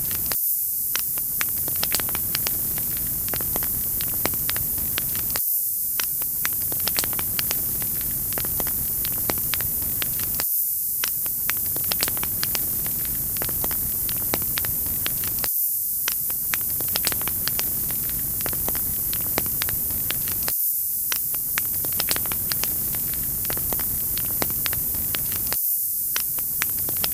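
Wood fire crackling: frequent sharp pops and snaps over a steady hiss, with the same stretch of sound repeating about every five seconds.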